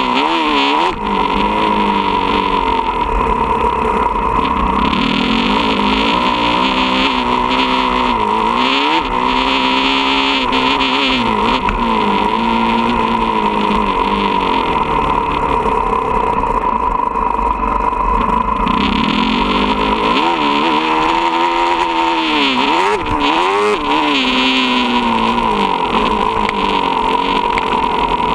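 Motocross dirt bike engine being ridden hard, its pitch repeatedly climbing and dropping as the rider opens and shuts the throttle and shifts, over a steady high whine.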